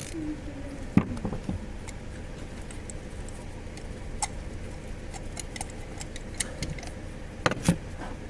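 Scattered clicks and ticks of hand tools and engine parts being handled during ignition coil and spark plug work, with a sharper knock about a second in and two more near the end.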